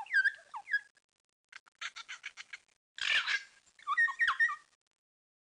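Birdsong: gliding whistled notes, then a quick run of short repeated notes, a harsh chattering burst about three seconds in, and more whistles before it stops near the end.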